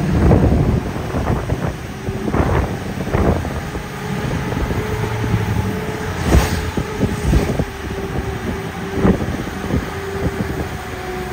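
Strong, gusty wind buffeting the microphone: a rough rumble broken by repeated sudden blasts, with a faint steady hum underneath.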